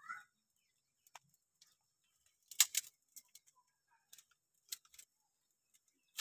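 A few sharp snaps and clicks of dry twigs and branches being handled, the loudest a quick double snap about two and a half seconds in, with a few single clicks after it.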